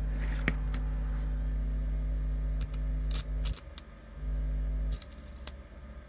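Steady low 50 Hz hum from a microwave-oven transformer fed a 50 Hz tone by an audio amplifier, with bursts of sharp clicks. The hum cuts out about three and a half seconds in, returns briefly, then cuts off for good at about five seconds as the amplifier disconnects its speaker output.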